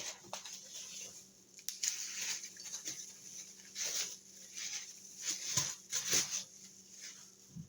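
Irregular rustling and light knocks of kit parts and packaging being handled and unpacked, in short uneven bursts.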